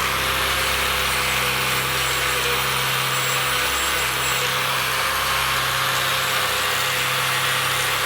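High-speed rotary grinder running steadily under load: a loud, even grinding hiss over a steady high whine, the kind made working the metal of a motorcycle exhaust.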